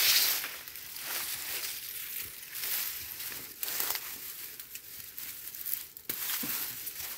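Leafy bush stems and foliage rustling and crackling as they are pulled and handled by hand, with a couple of sharp snaps, about a third of the way in and near the end: gathering plant stems to twist into a tie-rope.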